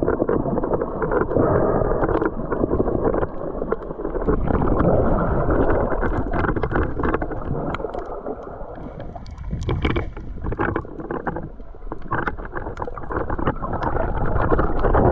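Muffled rushing and churning of seawater around a camera held underwater, with scattered small clicks and crackles; it eases for a few seconds in the middle, then builds again.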